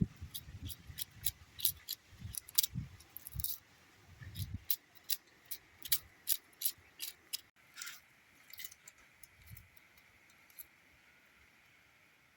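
A run of irregular sharp clicks and light knocks, with a few low thumps in the first half, thinning out after about eight seconds.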